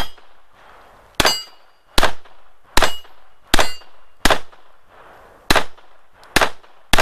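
A Spanish Ruby-pattern .32 ACP pistol fired shot after shot at a steady pace, about eight shots, roughly one every 0.8 s. Several shots are followed by the ringing clang of steel target plates being hit.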